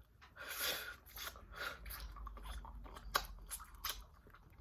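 Close-miked chewing of a person eating, with scattered sharp, wet mouth clicks.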